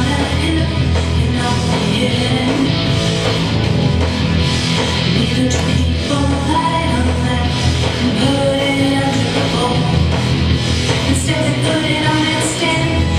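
A song with singing over full band accompaniment.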